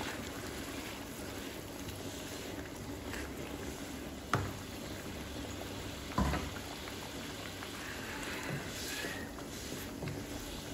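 Pork and coconut-milk curry with bamboo shoots bubbling in a wok, a steady bubbling hiss, while a metal spatula stirs through it. Two sharp knocks stand out, about four and six seconds in.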